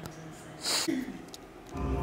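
A brief hissy burst with a short falling tone, then a music track with a heavy, steady bass starts loudly near the end.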